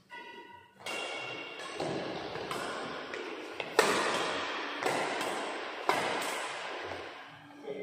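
Badminton rackets striking the shuttlecock in a fast rally, about one sharp hit a second, each with a ringing echo off the hall.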